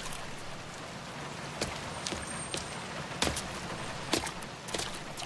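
Steady rain patter with scattered drips and taps at irregular moments.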